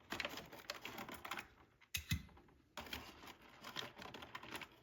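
Plastic blister and cardboard packaging of a multi-pack of die-cast toy cars being handled and opened: an irregular run of crackles and clicks, with a sharper knock about two seconds in.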